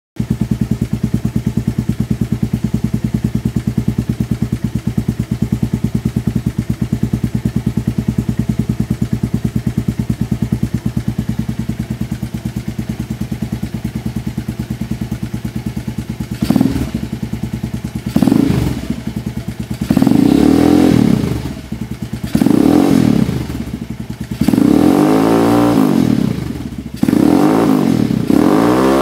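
Keeway TX200's single-cylinder four-stroke engine, breathing through an aftermarket KOZI muffler on stainless steel Demak piping, idling steadily. About halfway through, the throttle is blipped roughly six times, each rev rising and falling back to idle.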